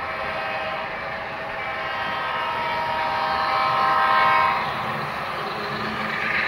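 Model train's locomotive horn from its onboard sound system, sounding a steady multi-note chord that swells to its loudest about four seconds in and stops just before five seconds, over the low rumble of the train rolling along the track.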